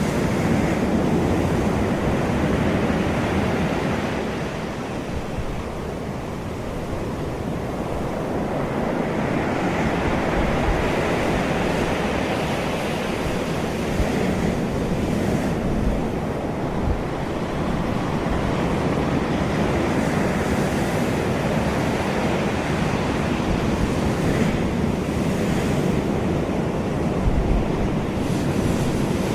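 Sea waves washing onto the shore in a continuous roar of surf that swells and eases as the waves come in, with wind buffeting the microphone in low thumps now and then.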